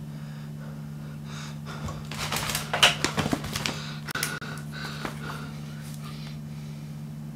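Steady low electrical hum, with a flurry of irregular clicks and rustles from handling a small object in the middle, the loudest click a little under three seconds in.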